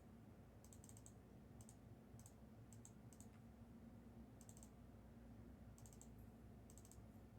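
Near silence with faint computer keyboard typing: short scattered clusters of light key clicks, about seven bursts.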